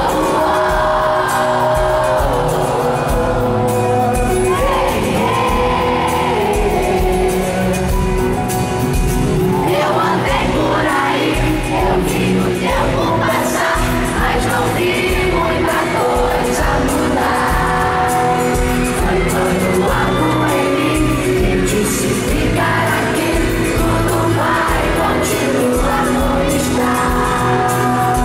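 Live pop concert: a band playing with a lead voice singing, in a large hall, with a crowd shouting and whooping along.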